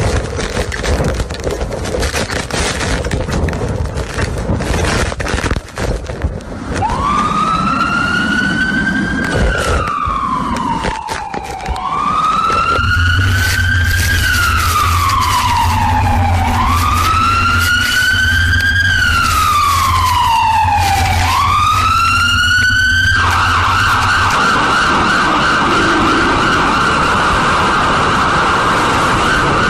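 Electronic emergency-vehicle siren: a slow wail rising and falling every four to five seconds starts about a quarter of the way in, switches to a rapid warble about three-quarters through, and goes back to the slow wail near the end. Before the siren there is a loud rush of noise with knocks.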